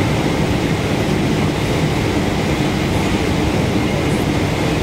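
Steady rumble and rush of a Boeing 777-224ER's GE90 engines and airflow heard inside the cabin on final approach, low over the airfield just before touchdown.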